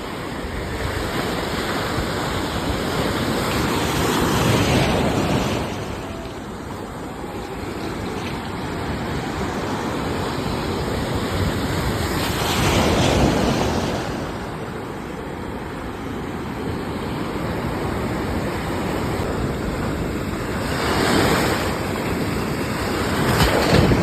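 Sea waves breaking and washing in, in a steady rush that swells with a breaker about every eight seconds and again near the end.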